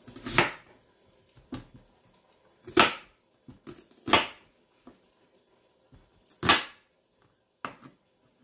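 Chef's knife cutting through a whole onion on a plastic cutting board: four separate cuts, one to two seconds apart, with a few lighter taps between.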